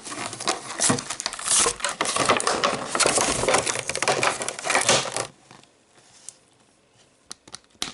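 Doll packaging being handled and opened: dense crackling and clicking of cardboard and plastic for about five seconds, then only a few light clicks.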